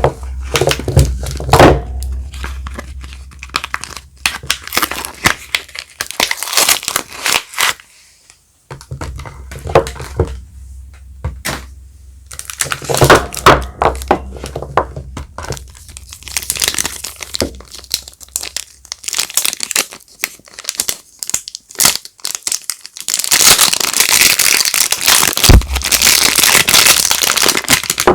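Soap wrapping being crinkled and torn open by hand: bouts of crackly crinkling with short pauses, then a long unbroken stretch of crinkling and tearing near the end.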